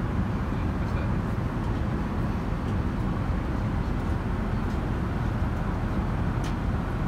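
Steady cabin noise of an airliner in flight: the low, even roar of the jet engines and rushing air, heard from a passenger seat inside the cabin.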